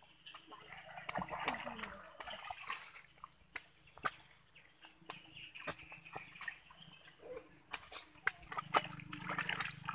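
Wet mud being squished, patted and pressed by hand: irregular wet slaps and squelches, packed around a bamboo frog trap.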